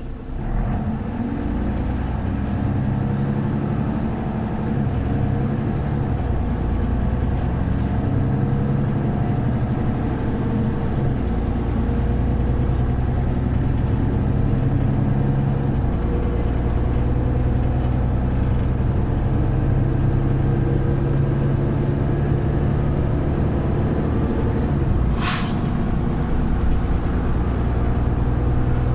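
Mercedes-Benz Citaro O530 bus engine running under way, heard from inside the bus, its note rising and falling with load and road speed. About 25 seconds in, a short sharp hiss of air as the bus's air system 'sneezes'.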